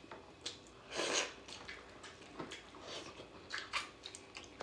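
Close mouth sounds of a person eating: chewing and smacking, with a few short irregular noises and a louder one about a second in.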